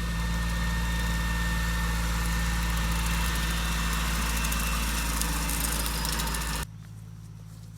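Tractor engine running loudly close by, steady and under a broad rushing noise. It cuts off abruptly about six and a half seconds in, leaving a quieter, steady engine hum.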